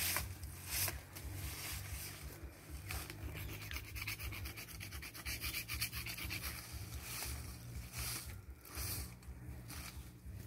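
Leafy branches rustling and scraping against a concrete slab as they are handled and spread out, with a run of fast rasping strokes in the middle and a steady low rumble underneath.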